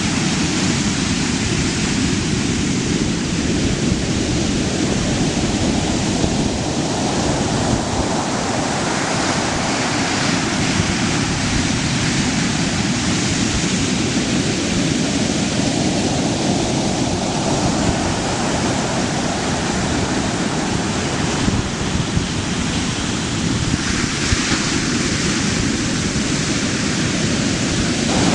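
Ocean surf breaking and washing ashore: a continuous rushing hiss that swells every several seconds as each breaker crashes and its whitewater rushes in.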